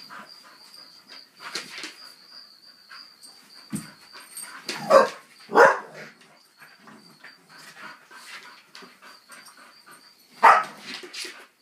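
Dogs play-fighting, with scuffling and low vocal noises throughout and three louder barks: two about five seconds in, one near the end.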